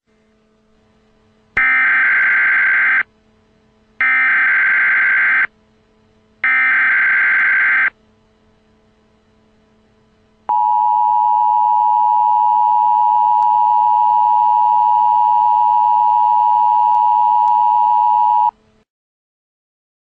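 Emergency Alert System header for a National Weather Service tornado warning: three bursts of digital SAME data tones, each about a second and a half long, then the two-tone EAS attention signal held steady for about eight seconds before it cuts off.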